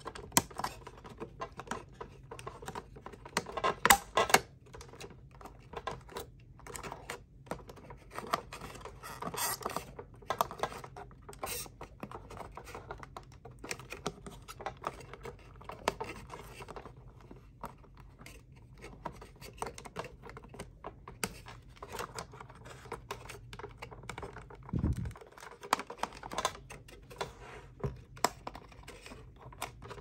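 Hands working small circuit boards and wire connectors into the plastic base of a Dyson Pure Cool Me fan: irregular clicks, taps and scratching of plastic and wiring, with a burst of louder clicks about four seconds in and a single dull knock late on.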